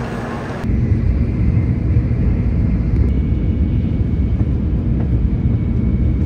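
Steady low rumble heard inside the cabin of a moving Shinkansen bullet train, cutting in abruptly under a second in after a brief moment of station platform noise.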